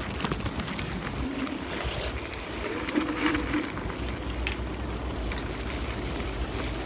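Dualtron Ultra electric scooter riding over a rough dirt trail: a steady low rumble from the tyres and wind on the microphone, broken by frequent short knocks and rattles as it bumps over the ground.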